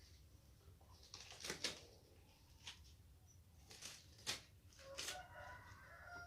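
Light clicks and knocks of small objects being handled, a handful spread through a quiet room, the kind made while packing away equipment. A faint held tone comes in near the end.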